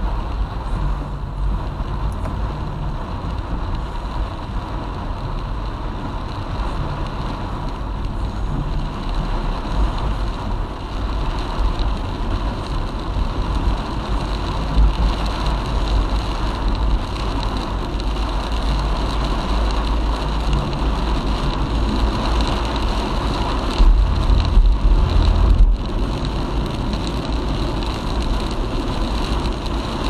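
A car driving on the highway, heard as a steady low rumble of road and engine noise with a continuous hiss above it, louder for a couple of seconds about 24 seconds in.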